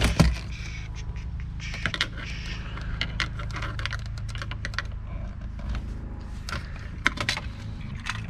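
Irregular light clicks and knocks of car interior trim being worked loose and pulled out, over a steady low hum.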